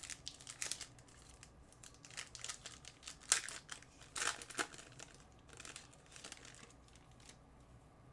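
Crinkling and rustling of trading-card pack wrappers and cards being handled, in irregular bursts, loudest about three seconds in and dying away near the end.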